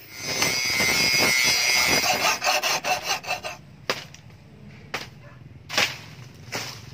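Steel billhook blade being abraded, a harsh scraping with a high steady whine for about two seconds that breaks into uneven strokes. It is followed by four sharp, separate chopping strikes as the blade cuts into plant stalks.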